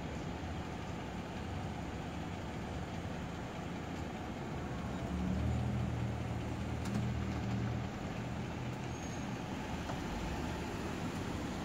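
Engine of a parked police SUV idling, a low steady hum that grows louder for about three seconds from roughly five seconds in.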